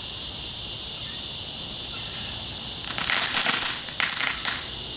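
Consumer firework fountain burning, breaking into loud crackling about three seconds in, in two spells of under a second each, over a steady high hiss.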